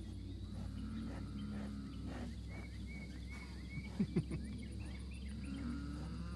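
Rural pasture ambience: insects pulsing steadily and birds chirping over a low steady rumble, with two brief thumps about four seconds in.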